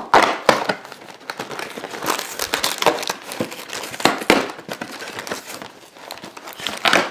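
Packaging being torn open by hand: irregular crinkling and tearing as a retail box of trading-card packs is opened and its contents pulled out.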